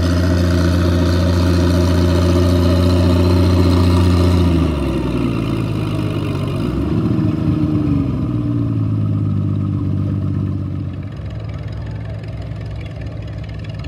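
Antique farm tractor engine running hard under full load while pulling a weight-transfer sled, with a steady, loud note. About five seconds in the note breaks and drops as the engine bogs down and the pull ends. It shifts in pitch for a moment, then settles quieter near the end.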